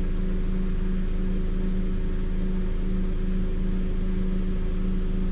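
Vehicle engine idling: a steady, unchanging low hum.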